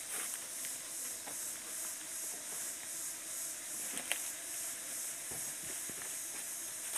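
A high, hissing insect chorus from the forest, pulsing in quick regular swells, with a few light clicks, the sharpest about four seconds in.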